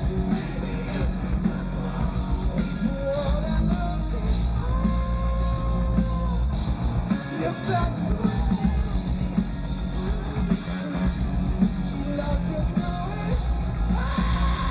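Live hard rock band playing loudly, with heavy drums and bass under distorted guitars and some singing or shouting.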